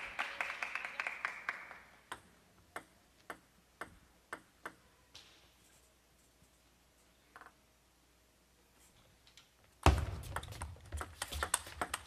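Table tennis ball clicking: a few sharp bounces at shortening gaps as the server readies, then near quiet. About ten seconds in the rally starts, with quick ball hits over a low rumble of hall noise. Light applause fades out at the very start.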